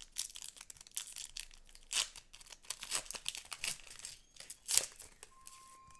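Foil wrapper of a Pokémon card booster pack being torn open and crinkled by hand, an irregular string of sharp crackles.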